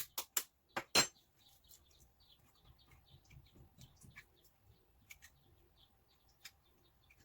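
Five quick sharp clicks in the first second from eggs being cracked and separated into bowls, followed by faint, scattered bird chirping.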